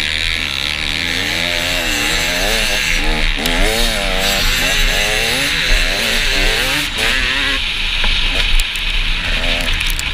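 Dirt bike engine revving up and down over and over as it accelerates and shifts, heard from the rider's helmet camera with a steady rush of wind on the microphone.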